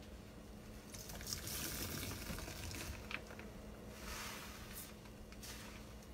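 Sponges squeezed and kneaded by rubber-gloved hands in a basin of sudsy water. The squelching and splashing come in two spells, about a second in and again about four seconds in, with a short sharp click near the middle.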